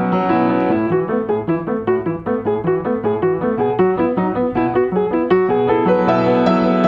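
Yamaha upright piano played solo: a run of quick, evenly spaced notes, about five a second, then fuller held chords near the end.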